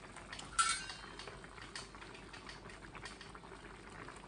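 Chicken curry simmering in a stainless steel pan, faint bubbling with a wooden spoon stirring through it. About half a second in, one sharp metallic clink rings briefly, the pan's metal lid or rim being knocked.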